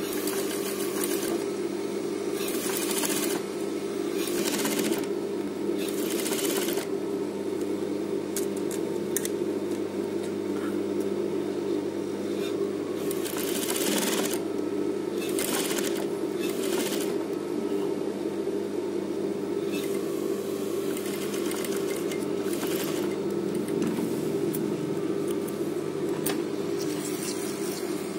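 Industrial lockstitch sewing machine sewing a zipper onto fabric. It stitches in several short runs over a steady motor hum.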